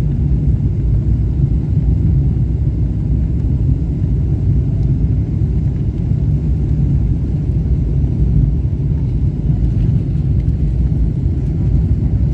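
Steady low rumble inside the cabin of a Boeing 777-300ER on approach: engine and airflow noise.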